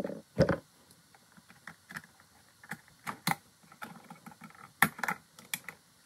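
Scattered small clicks and scrapes of pliers and metal against an electrical outlet's terminal screws and copper wires as the wires are unhooked from the old outlet.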